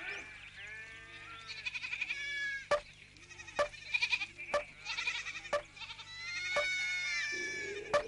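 A herd of goats and sheep bleating, many calls overlapping. Sharp knocks come about once a second from about three seconds in.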